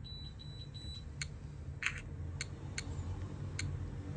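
Graupner RC transmitter giving a few short high electronic beeps, followed by about five light, separate clicks as its controls are operated during setup, over a low steady hum.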